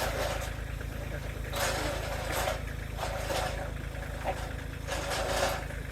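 An engine running steadily, with irregular bursts of rattling and scraping noise over it.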